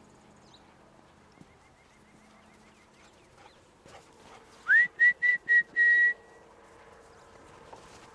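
A whistle blown at one high pitch: a first blast that swoops up into the note, then a quick run of about four short pips, the last held a little longer. It is a recall signal to the dogs.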